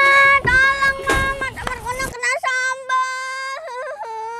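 A girl wailing in a string of long, drawn-out, high-pitched cries, each held for about a second before breaking into the next.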